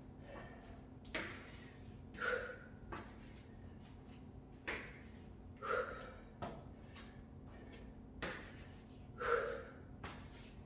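Soft thumps of knees and sneakers landing on a yoga mat over a hard floor, about one a second, with short forceful exhales between them, as a person drops to the knees and stands back up in alternating kneeling lunges.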